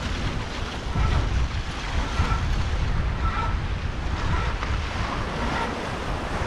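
Wind buffeting the microphone on the deck of a sailing catamaran under way, over the rush of the sea. A faint short high tone repeats about once a second.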